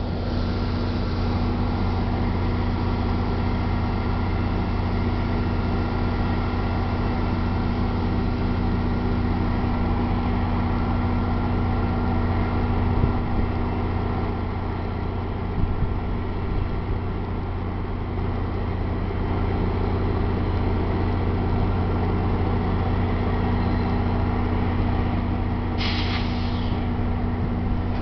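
Steady low drone of a standing NJ Transit commuter train headed by a GP40PH-2B diesel locomotive. A brief hiss of air from the brakes comes near the end.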